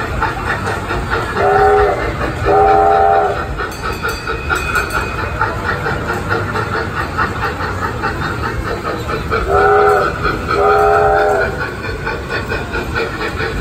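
Carnival kiddie train ride sounding its horn: a chord of several steady tones, one short toot followed by a longer one, repeated as a second pair about eight seconds later. Steady background noise from the running ride lies underneath.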